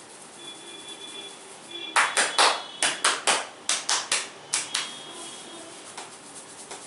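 A masseur's hands slapping the head in a percussive head-massage stroke: about eleven sharp slaps in quick groups of three, starting about two seconds in.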